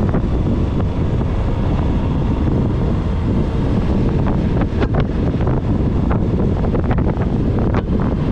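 Heavy wind rush on the microphone of a motorcycle-mounted camera riding at road speed, loud and steady, with a few sharper gusts of buffeting in the second half.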